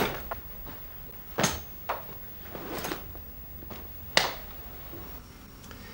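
A handful of short, sharp knocks and clicks, about five spread unevenly over the first four seconds, with quiet between them.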